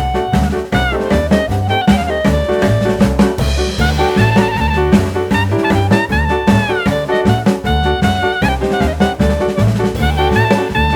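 Background music: up-tempo jazz with horns playing a sliding melody over bass and drum kit.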